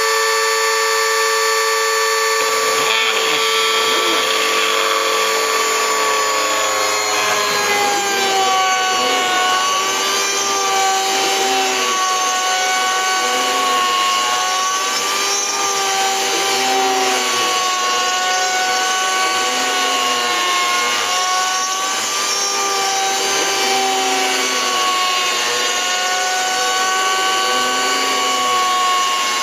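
Homemade CNC mill milling a circular pocket in wood, its spindle a cheap mini grinder running with a high whine and overtones. About two and a half seconds in, the sound turns rougher, and the pitch then dips and rises in a repeating cycle about every two seconds.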